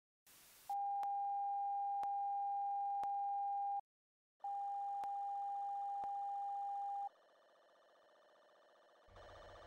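Steady electronic line-up test tone of the kind played over colour bars, with faint ticks about once a second. It comes in after a brief burst of hiss, breaks off for about half a second around four seconds in, and stops about seven seconds in. A faint hiss follows, and then a low buzzing hum near the end.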